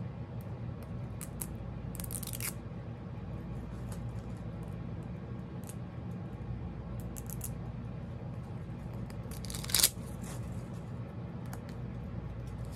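Fingers working a tiny plastic doll and its small parts: scattered light clicks and crinkles, with a short louder rustle about two seconds in and a louder one near ten seconds in, over a steady low hum.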